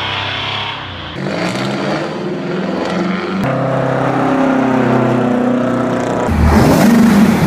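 Heavy diesel truck engines with the sound of Detroit Diesel two-strokes, running and pulling in a series of short spliced clips, each with its own engine pitch. The loudest one comes in about six seconds in.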